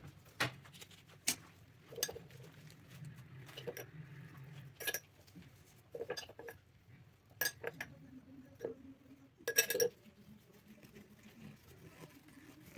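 Kitchen dishes and utensils clinking and knocking now and then, about a dozen separate short clinks with a quick cluster about three quarters of the way through.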